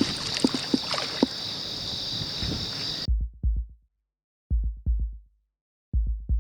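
Insects chirping in a steady high drone, with a few light clicks. About three seconds in, this cuts out abruptly to a heartbeat sound effect: pairs of low thumps, lub-dub, repeating about every second and a half over dead silence.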